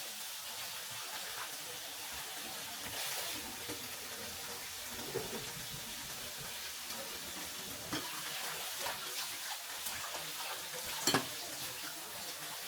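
Burger patties sizzling and frying in a pan, a steady hiss, with a few short utensil knocks, the loudest near the end.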